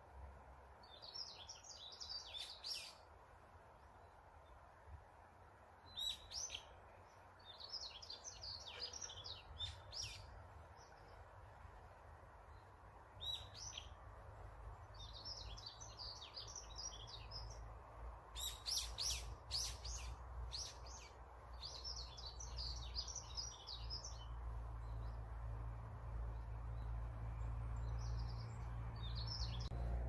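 Forest songbirds singing in short bursts of rapid high chirps, several phrases a few seconds apart, over a steady low rumble that grows louder toward the end.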